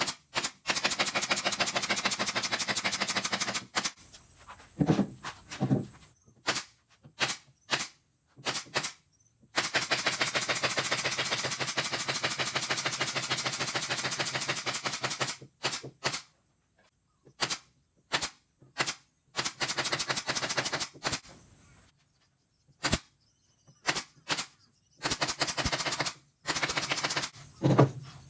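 Rapid, evenly spaced mechanical hammering in bursts. The longer runs last two to six seconds, and short stabs of a fraction of a second come between them, as a power tool is triggered on and off while the subwoofer cabinet is assembled.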